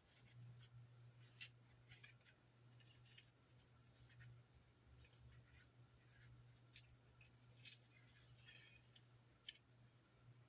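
Faint, irregular scratching and light clicks of a toothpick spreading glue over a polystyrene sheet, over a steady low hum.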